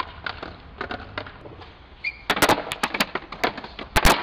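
Skateboard deck and wheels clacking and popping on stone steps and pavement: a run of sharp clacks, then a loud slap as the board lands about four seconds in.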